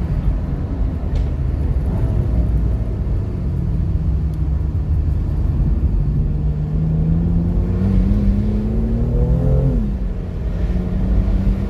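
Jaguar F-Type's supercharged 5.0-litre V8 running under load. Its note climbs steadily from about four seconds in, drops sharply near the end at an upshift, then settles to a steady drone.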